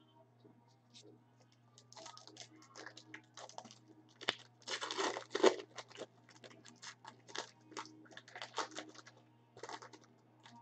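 Trading card pack wrapper crinkling and being torn open, with cards clicking and rustling as they are handled. The loudest tearing comes about five seconds in.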